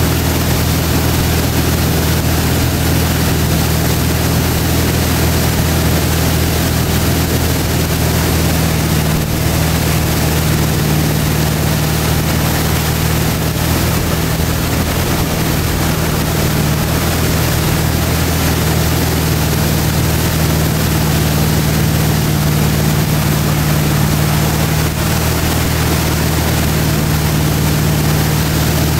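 Ski boat's engine running steadily at towing speed, with water rushing from the hull and wake.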